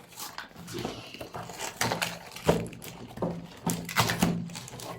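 Toys and their packaging being handled during an unboxing: a handful of separate knocks and thuds spread through a few seconds.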